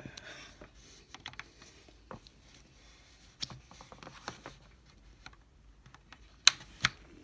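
Scattered light clicks and taps from handling a computer mouse and its packaging as it is unboxed, with one sharper click about six and a half seconds in.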